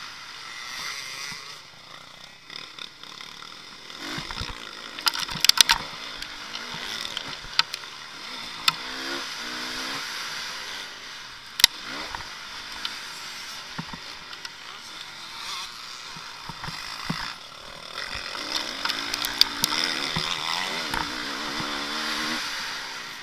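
Motocross bike engine heard from on board, its revs rising and falling, under wind noise on the microphone, with several sharp knocks, the loudest about five and twelve seconds in.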